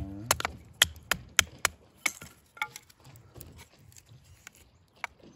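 A quick, irregular run of sharp knocks or snaps, about eight in the first three seconds, then two fainter ones near the end.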